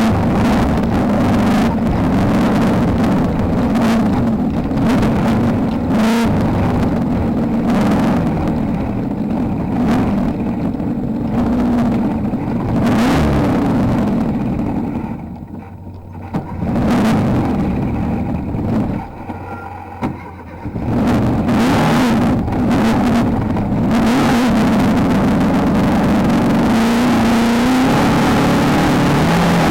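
Off-road race car's engine running hard, its pitch wavering up and down with the throttle, with sharp knocks scattered through. Twice in the middle the engine drops off for a couple of seconds before pulling hard again.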